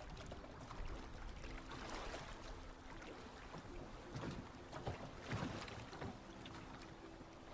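Mixed seaside ambience: waves washing and wind blowing steadily, with water lapping around a boat moored at a dock. Several louder washes come between about two and six seconds in, and a faint ukulele tune plays in the background.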